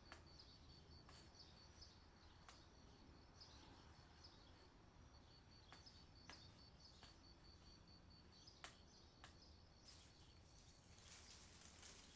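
Near silence: quiet outdoor ambience with a faint, rapidly pulsing high-pitched trill and a few scattered soft clicks. A light hiss rises near the end.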